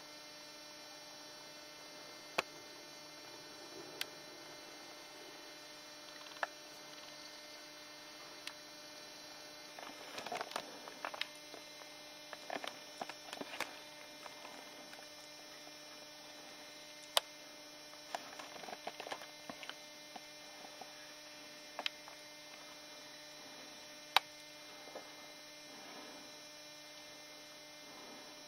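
Steady electrical hum with several faint steady tones, broken by a few sharp single clicks and several short spells of rustling.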